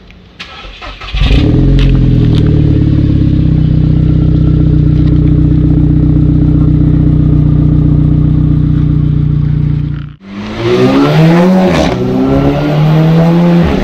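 2008 VW Golf GTI Mk5's turbocharged 2.0 FSI four-cylinder, breathing through a catless 3-inch downpipe, a muffler delete and a single straight pipe, starts about a second in and settles into a loud, steady idle at the exhaust tip. After a break about ten seconds in, the engine note rises and falls.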